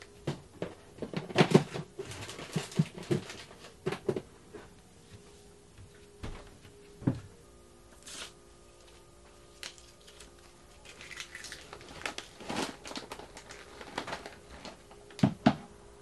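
Household packing sounds: scattered knocks, clatters and rustling of plastic food packets, bags and a plastic storage box being handled and put away, in bursts with quieter gaps between them.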